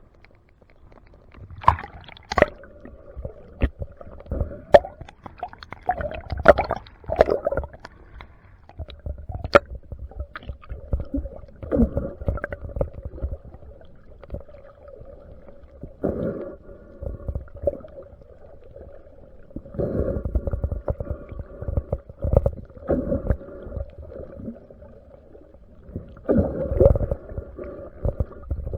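Underwater water noise: irregular gurgling surges and scattered sharp clicks over a steady hum.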